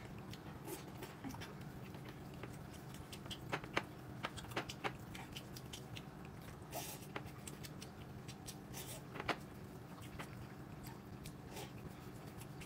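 Quiet eating at a table: scattered small clicks and taps of utensils on dishes, with chewing, over a faint steady low hum. A few louder taps come about four seconds in and one just after nine seconds.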